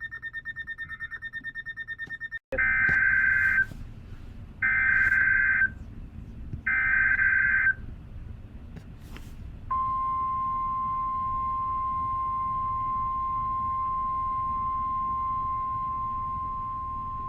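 Weather radio broadcasting an Emergency Alert System alert. A fast-pulsing electronic beep cuts off about two seconds in. Three one-second bursts of the SAME digital header's warbling data tones follow, and then the long, steady 1050 Hz NOAA Weather Radio warning alarm tone begins, which eases slightly near the end.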